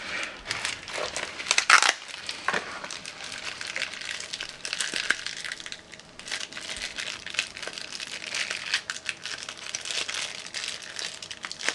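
Black plastic wrapper bag crinkling and crackling as it is squeezed and handled in the hands, with a louder crunch a little under two seconds in.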